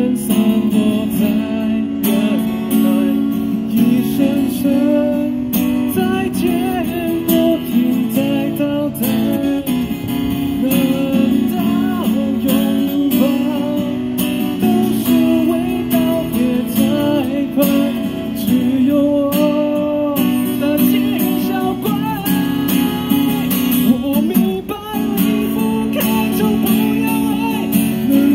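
A man singing into a handheld microphone, accompanied by an acoustic guitar.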